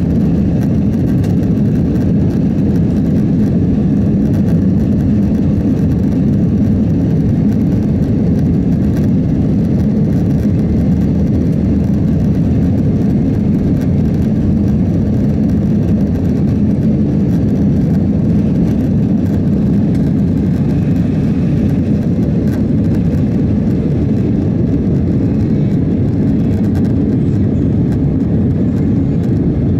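Steady rumble of a Boeing 767-400's jet engines heard from inside the passenger cabin, holding an even level throughout.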